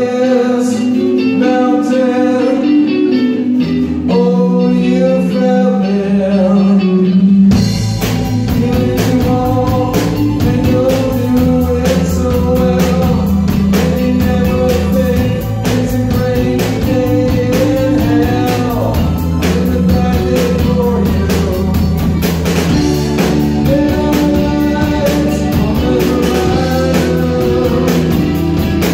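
Live rock band playing a song: a man sings over keyboard, bass and electric guitars. About seven seconds in, the drum kit comes in and the full band plays on.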